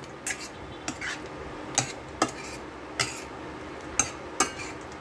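Metal spoon stirring pork stew in a stainless steel pot, with sharp, irregular clinks as it knocks and scrapes against the pot, about eight in all.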